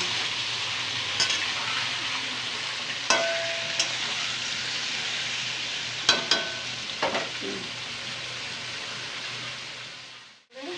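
Chicken pieces frying in hot oil in a kadhai: a steady sizzle, with a few sharp metal clinks against the pan. The sizzle fades out near the end.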